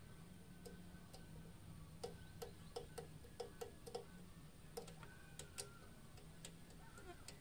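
Faint light clicking as a hand handles thin spoke wires and plastic tube contacts of a homemade switch: a quick run of about eight clicks some two seconds in, then a few more about a second later, over a low steady hum.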